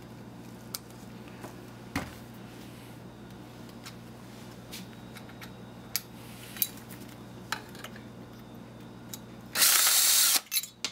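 Small metal clicks and clinks as faucet parts are handled, then near the end a cordless drill/driver runs loudly for under a second on a stuck screw in the faucet body.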